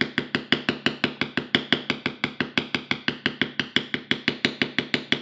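Mallet rapidly tapping a leather beveler, about seven even strikes a second, each a sharp knock with a short ring, as the tool is walked along the back edge of a carved stem on leather backed by a granite slab.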